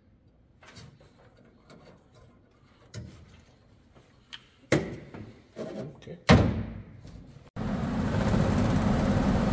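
A few knocks and clunks of metal panels and parts being handled in the furnace cabinet, the two loudest about five and six and a half seconds in. About seven and a half seconds in, the furnace blower motor's steady running noise comes in abruptly.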